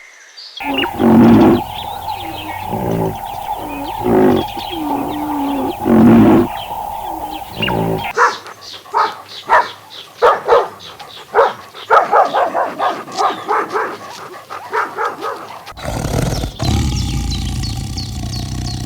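Animal calls from several animals in turn. First come loud pitched calls about every second and a half. About eight seconds in they give way to a fast run of short calls, and near the end to a low, rough, roar-like call.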